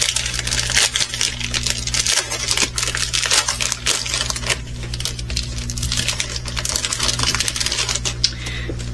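Small plastic bags of resin diamond-painting drills being handled, the tiny drills clicking and rattling against each other with plastic crinkling, over a steady low hum.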